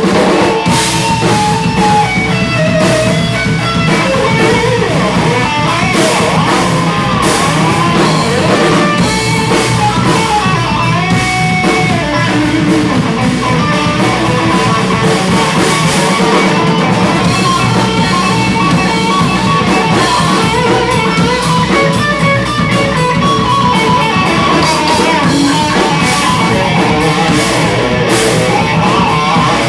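Rock band playing live: guitar and drum kit, loud and steady throughout.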